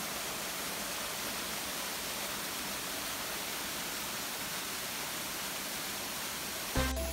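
Waterfall and stream rushing over rocks: a steady, even rush of falling water. Near the end it cuts off and music with a beat starts.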